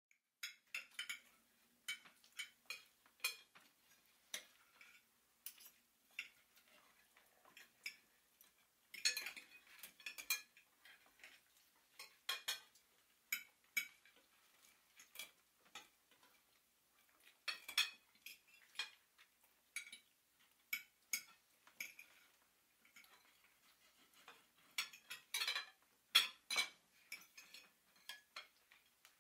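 Cutlery and dishes clinking irregularly, a run of short light clinks with slight ringing, busier about nine seconds in and again around twenty-five seconds in.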